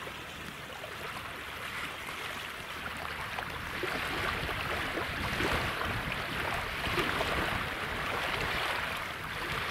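Water sloshing and splashing, getting louder about halfway through.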